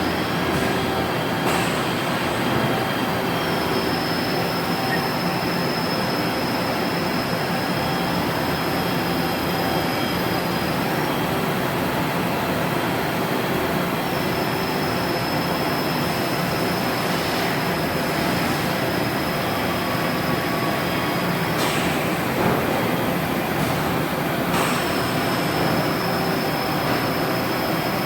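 Metalworking machinery running steadily in a machine shop, with a high thin whine that comes and goes three times and a few sharp clicks.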